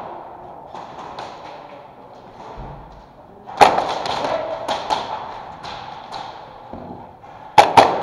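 Airsoft gunfire and BB hits in a plywood close-quarters arena: scattered sharp cracks and knocks, the loudest about three and a half seconds in and a close pair near the end.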